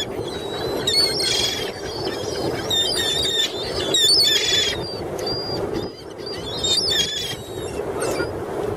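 A flock of gulls calling over one another: many short, high cries, with louder, harsher calls about a second and a half in, near the middle and near the end, over a steady low rushing background.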